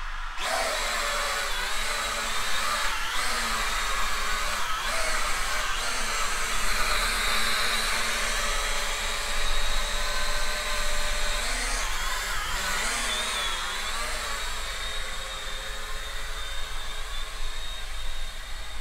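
E99 K3 Pro toy quadcopter drone flying: its small motors and propellers buzz with a steady whine that starts at the beginning, the pitch wavering up and down as the throttle and stick inputs change.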